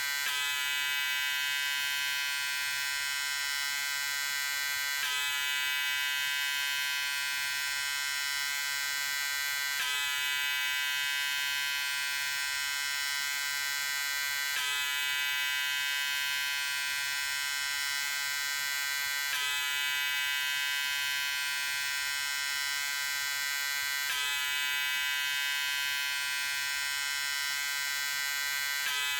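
Electric shaver running with a steady, even buzz. The same stretch repeats about every five seconds, with a faint seam at each repeat.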